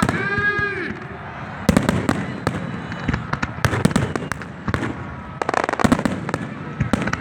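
Fireworks going off: clusters of sharp bangs and crackles, several times over. A voice calls out briefly at the start.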